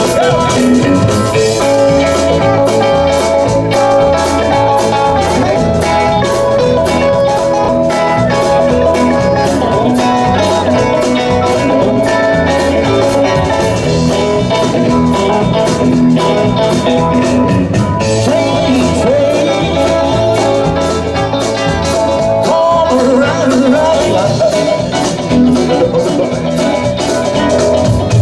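Rock and roll band playing live, with electric guitars, bass, a drum kit keeping a steady beat, and a singer.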